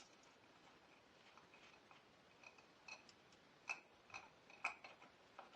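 Faint, scattered small clicks and ticks, with a few sharper clicks in the middle of the stretch.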